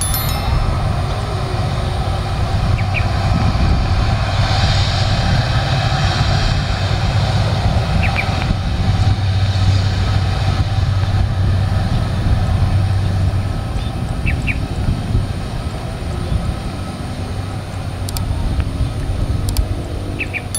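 Jet airliner engines, a steady loud rumble with a low hum and a hiss that swells about four seconds in and eases a few seconds later.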